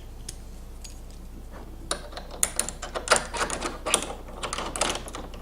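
Harness pins and hardware clicking and rattling as they are fitted into place by hand. The irregular clicks and taps start about two seconds in.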